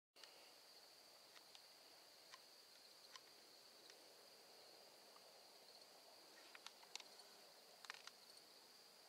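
Faint, steady high-pitched insect chorus trilling without a break, with a few small ticks and clicks scattered through it, most of them near the end.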